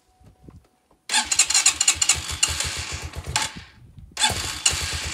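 Motoland 250 Enduro's single-cylinder engine being started from cold on the choke. It catches about a second in and runs briefly, fades and nearly dies, then picks up again near the end and keeps running.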